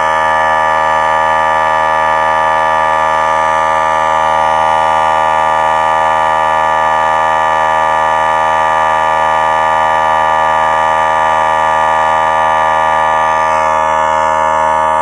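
Central Pneumatic 3-gallon, 1/3 horsepower electric air compressor running and pumping up its tank, at about 70 psi on the way to its 100 psi maximum. A pretty noisy, steady drone that shifts slightly in tone near the end.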